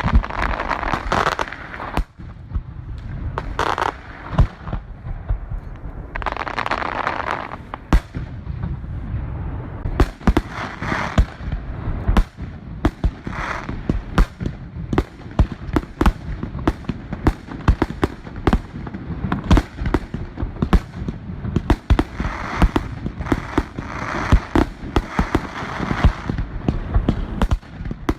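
Fireworks going off: many sharp bangs and pops in quick succession over a continuous low rumble, with stretches of hiss between them.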